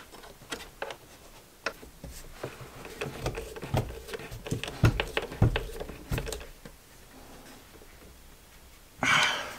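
Irregular light clicks and knocks of cable lugs and terminal hardware being handled and fitted on a battery, a few with a dull thud, then a short louder rustle near the end.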